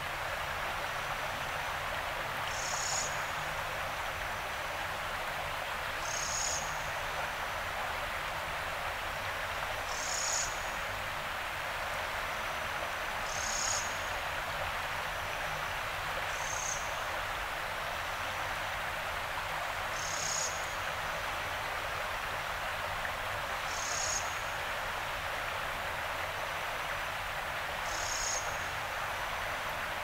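Yarra River water flowing with a steady rushing hiss. About every three and a half seconds a small animal gives a short high call, a faint thin note followed by a brighter chirp, eight times over.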